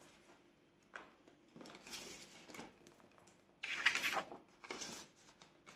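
Cash being handled: paper banknotes rustling in bursts of handling, with a light click about a second in and the loudest rustle a little before the end.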